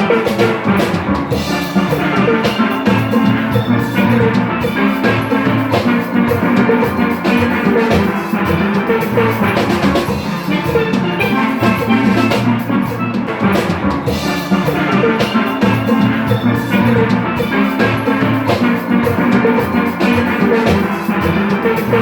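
Upbeat steelpan music with drums keeping a steady beat.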